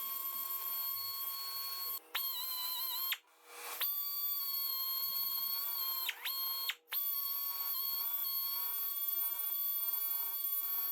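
Die grinder whining at a steady high pitch as it grinds out cracks in an old aluminum bracket. It cuts out and restarts a few times, and its pitch dips briefly as the burr bites into the metal.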